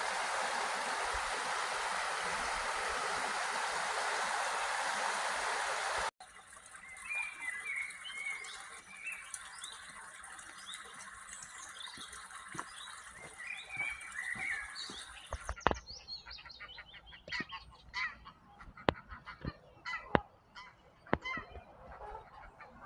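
Rushing river water for about six seconds, then, after a cut, geese honking and calling: wavering calls at first, then a run of short sharp honks in the second half.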